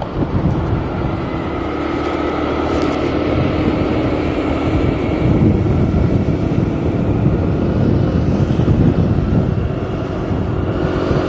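Wind buffeting the microphone over the steady hum of a motor scooter's engine while riding along a road.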